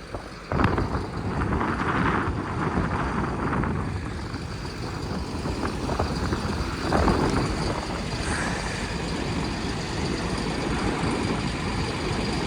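Strong gusty wind buffeting the microphone: a rough, rumbling rush that rises and falls in surges.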